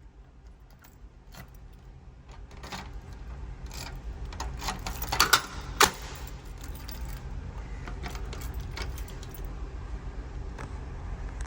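Keys jangling, with scattered light metallic clicks that are loudest about five to six seconds in, over a steady low hum.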